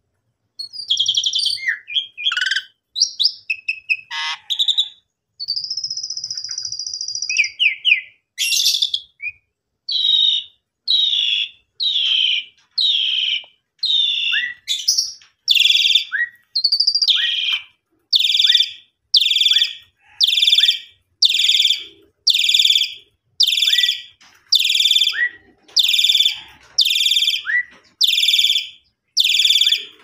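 Asian pied starling (jalak suren) singing. It starts with a varied run of chirps and whistles, including one long held whistle, then settles into a single call repeated about once a second.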